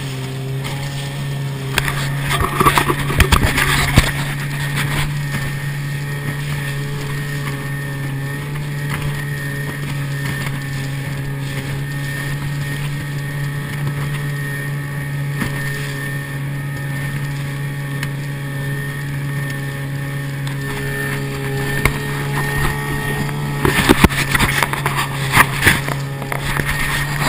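Outboard motor of a small inflatable boat running steadily at speed, a constant low drone. There are clusters of loud knocks and rushing noise about two to four seconds in and again near the end.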